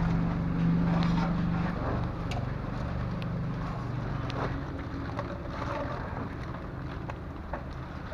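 An engine running, a low steady hum that fades over the first few seconds, with a few light knocks over a steady background hiss.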